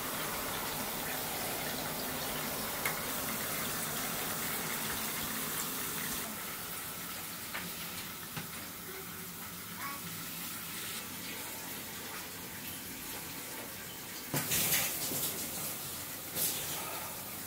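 Water running steadily from a tap into a bathtub, slightly louder for the first few seconds, with a few short louder knocks near the end.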